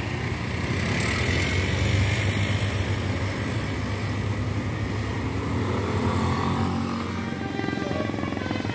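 Diesel engine of a large tour bus running with a steady low hum and road noise. Near the end, a multi-tone telolet horn begins to sound.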